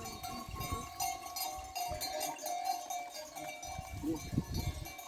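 Livestock bells clanking and ringing on a flock of sheep and goats.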